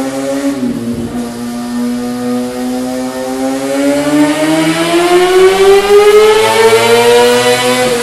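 Kawasaki ZX-6R 636's inline-four engine running through a MIVV MK3 aftermarket exhaust, held at steady high revs, then revving up smoothly from about three seconds in to nearly double the pitch. The revs drop back off at the very end.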